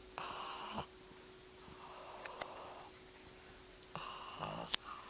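A sleeping pug snoring, a sound typical of the breed's short muzzle: a short loud snore near the start, a softer, longer breath in the middle, and another short loud snore about four seconds after the first.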